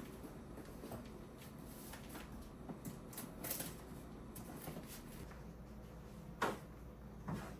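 Light clicks and taps of small objects being handled, with two louder knocks near the end.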